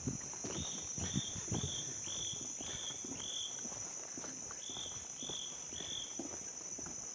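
Steady high-pitched insect buzzing in forest, with a series of short rising call notes repeated about twice a second, six then, after a pause, three more. Footsteps sound under it.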